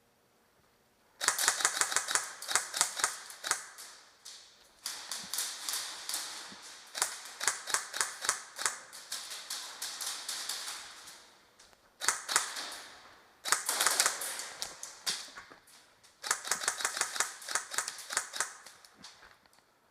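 Airsoft guns firing: rapid, sharp clicking shots in several long volleys with short breaks between them.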